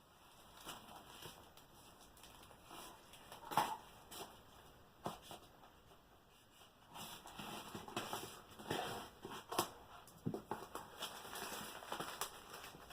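Hands opening a cardboard shipping box: irregular rustling, scraping and knocks of the packaging, busier in the second half, with a few sharper knocks.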